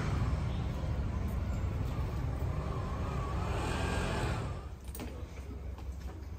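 A motor vehicle going by in street traffic: a low engine and tyre rumble whose pitch rises and falls. It drops away suddenly about four and a half seconds in, leaving quieter street sound.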